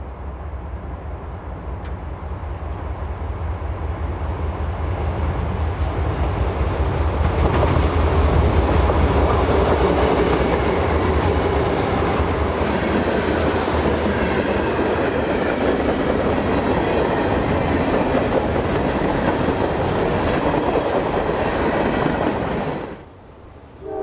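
GE C40-8 diesel locomotives under power hauling a freight train, their deep engine rumble growing louder over the first several seconds as the train approaches. A steady heavy rumble and clatter of the train's wheels and cars going by follows. The sound drops away abruptly near the end.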